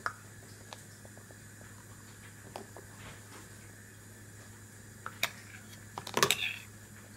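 Light plastic bowls knocked and tapped against each other and on a high-chair tray: scattered single clicks, then a louder clatter of several knocks about six seconds in.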